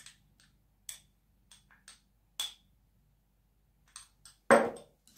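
A metal spoon clinking and scraping against small glass bowls in a run of light taps as honey is spooned out. Then a quiet stretch, and a single louder knock about four and a half seconds in.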